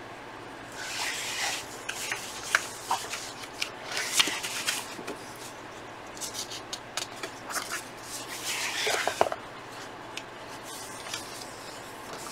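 Paper pages of a magazine being turned and smoothed flat by hand: three rustling sweeps, about one, four and nine seconds in, with small paper ticks between.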